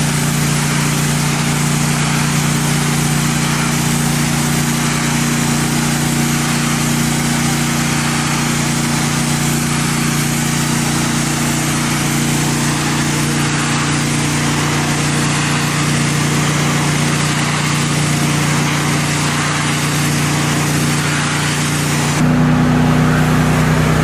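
Pressure washer's gas engine running steadily, with a dense hiss of high-pressure water spraying. About two seconds before the end the spray hiss drops away and the engine note changes.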